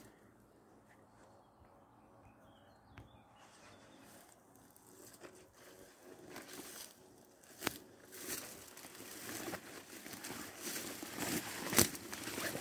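Footsteps through grass and undergrowth, with leaves and twigs rustling and crackling; faint at first, growing louder from about halfway, with a sharp click about eight seconds in and a louder one near the end.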